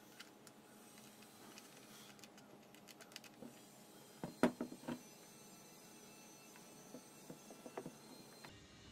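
Faint scattered clicks and light knocks, with a quick cluster of three or four sharper knocks about halfway through and a few softer ones near the end.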